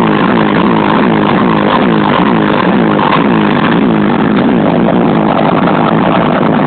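Car audio system with two Bomber Upgrade subwoofers playing bass-heavy music at high volume, recorded on a phone microphone. A falling bass note repeats about two or three times a second.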